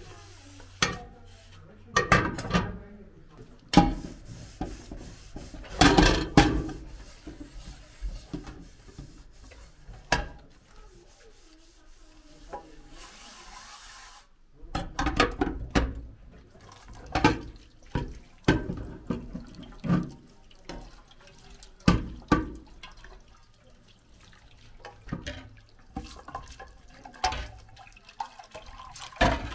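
Pots and lids being washed by hand in a stainless-steel sink: metal cookware clattering and knocking irregularly against the sink, with tap water running and splashing.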